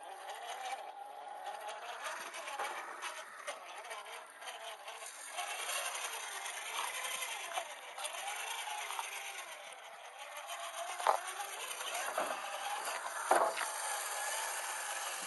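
Redcat Gen8 1/10-scale RC rock crawler's electric motor whining, its pitch rising and falling with the throttle, while the tyres and chassis scrape and rattle over rock. A few sharp knocks come near the end.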